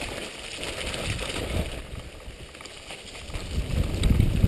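Mountain bike rolling fast down a leaf-covered dirt trail: tyre noise and rattle over rough ground, with a low wind rumble on the microphone swelling near the end.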